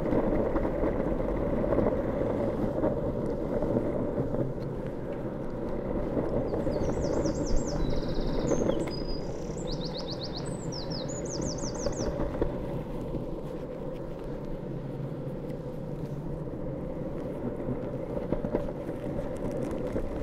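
Longboard wheels rolling on tarmac, a steady low rumble. About seven to twelve seconds in, a small bird chirps above it in quick repeated runs.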